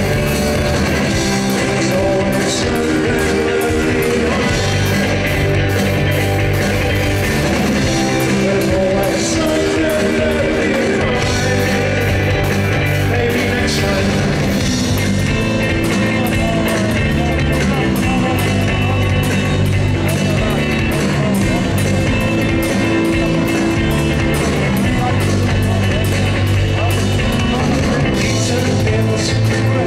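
Indie rock band playing live: electric guitars, bass guitar and a drum kit with cymbals, steady and loud.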